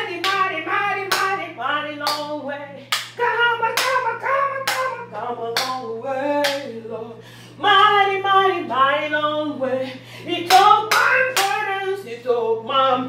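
Gospel singing over steady hand claps, about two claps a second.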